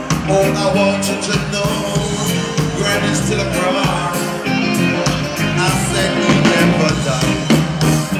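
Live reggae band playing through a stage PA: electric guitar and bass over a steady beat, with a singer's voice.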